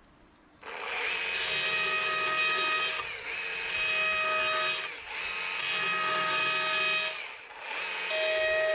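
Chainsaw cutting into a wooden sign board to carve out the letters. It starts suddenly about half a second in and runs at a steady, even-pitched whine in cuts of about two seconds, easing off briefly three times.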